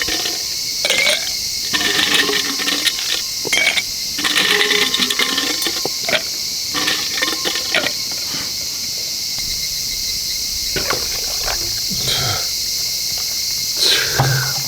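Steady high-pitched chirring of insects, such as crickets, with scattered short clicks and knocks, and a brief low thump near the end.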